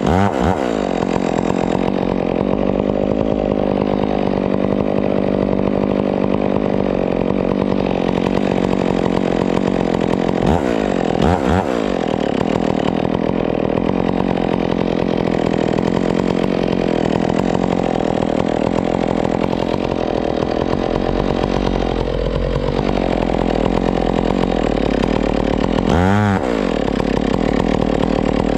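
Stihl chainsaw running hard and steady, cutting into palm wood. Twice its revs drop sharply and climb straight back up.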